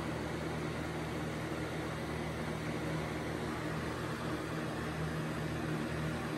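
Steady low mechanical hum of a running machine, even and unbroken, with no strokes or knocks in it.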